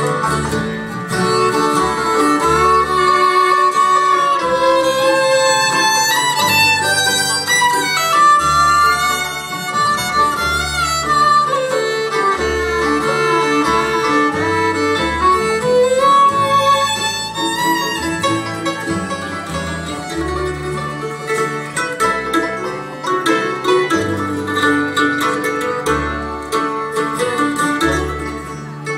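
Live bluegrass band playing an instrumental break between sung verses: a fiddle carries the melody over acoustic guitar and upright bass.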